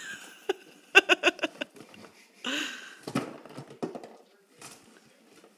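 A dog tearing and chewing at a cardboard box to get at the treats inside, with scattered crackles and scrapes of cardboard. A person's voice comes in briefly about a second in and again a little later.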